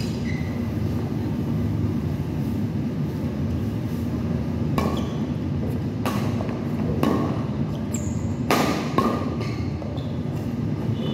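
Badminton rackets striking a shuttlecock during a rally: a run of sharp smacks about a second apart in the second half, over a steady low rumble. A brief high squeak comes just before the last hits.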